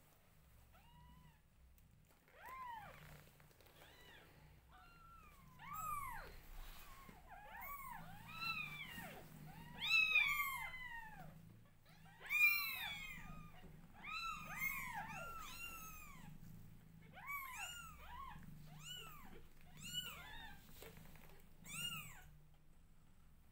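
Newborn kittens mewing while their mother grooms them: a long run of short, high-pitched, arching cries, one after another and sometimes overlapping, loudest about ten and twelve seconds in.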